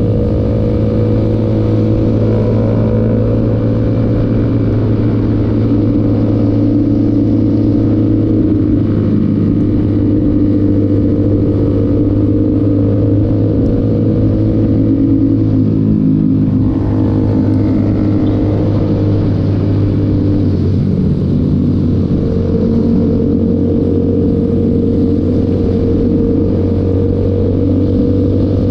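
Motorcycle engine running steadily under way, with a constant deep hum.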